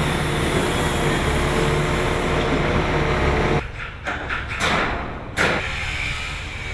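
Heavy construction machinery running steadily, a large engine with a low hum and a wash of noise, the kind used when pouring a concrete floor slab. A few sharp knocks come about four to five and a half seconds in, as the steady noise briefly drops.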